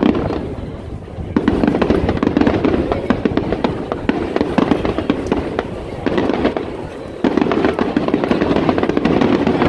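Aerial fireworks bursting and crackling in rapid succession, a dense run of bangs and crackles over a low rumble. The volume dips briefly near the start, then jumps up again about a second and a half in and once more about seven seconds in.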